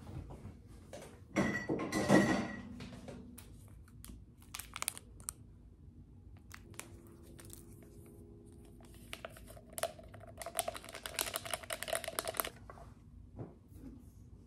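Small instant-coffee stick packet crinkling and being torn open, then more crinkly rustling in bursts as it is handled and emptied into a mug. The longest stretch of crackling comes near the end.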